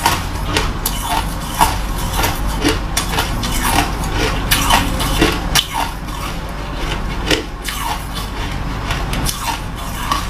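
Chunks of ice being bitten and chewed: an irregular run of sharp, crisp crunches and cracks, several a second.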